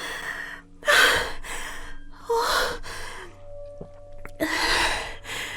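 A woman breathing heavily and shakily in fright, about four loud gasping breaths, with two faint clicks near the middle.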